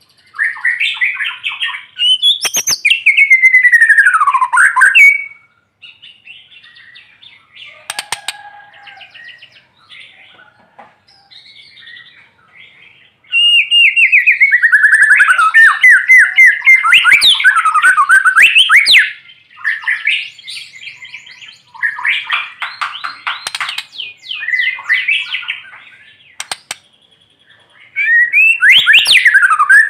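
White-rumped shama singing hard: loud volleys of rapid repeated notes and sweeping whistles, broken by quieter, sparser passages about a third of the way in and again later.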